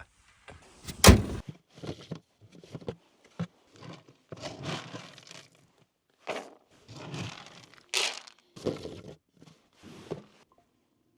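A truck hood slammed shut with one loud thunk about a second in, followed by a string of short scuffing and rustling noises.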